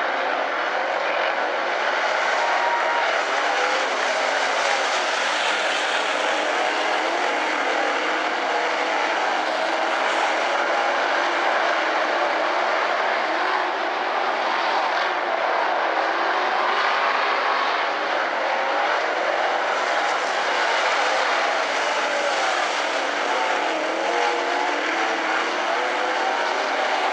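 A pack of dirt-track modified race cars at speed, their V8 engines running hard together. The mixed engine pitches waver up and down as the drivers get on and off the throttle through the turns.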